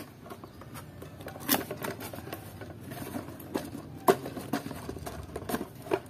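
Cardboard toy box being opened by hand: scattered taps, scrapes and rustles as the flaps are pulled open.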